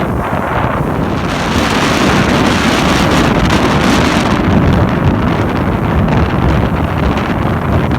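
Strong wind buffeting the microphone aboard a moving boat: a loud, steady rush of noise that covers everything else.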